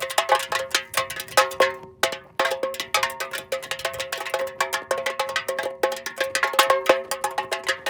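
Aluminium soda can rolling on the ground: a rapid, irregular clatter of small metallic knocks, each with a bright ringing tone, with a brief lull about two seconds in.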